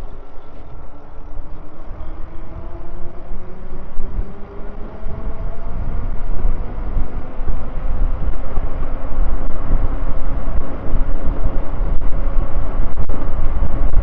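Wind rushing over the microphone of a moving e-bike, with a faint whine slowly rising in pitch, the rushing growing louder as the ride goes on.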